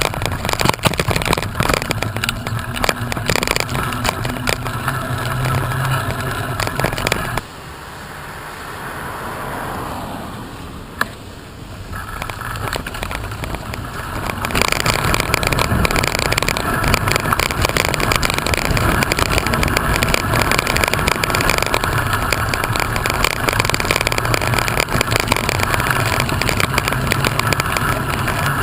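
Steady wind and road noise from moving along, dropping to a quieter stretch for several seconds in the middle, with a single sharp click during the lull.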